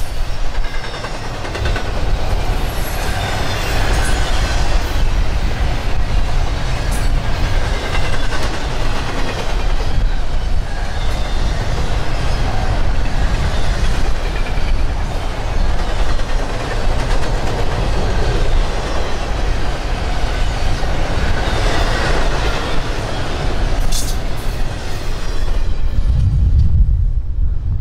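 CSX freight train rolling past close by: steel wheels clattering over the rail joints with some wheel squeal, a steady loud rumble of passing cars. The higher rail noise drops away suddenly near the end.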